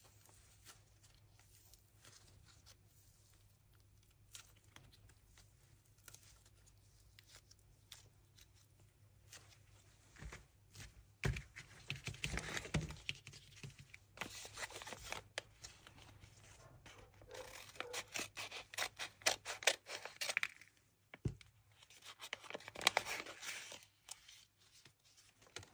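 Paper blind bag being handled and torn open: faint handling noises at first, then bursts of paper rustling and tearing from about ten seconds in.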